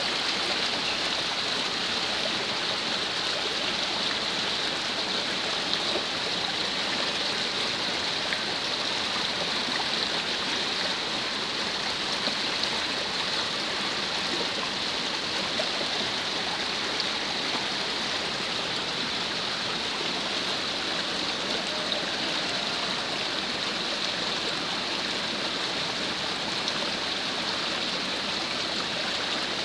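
Heavy rain falling steadily, with muddy runoff water rushing down an unpaved dirt street.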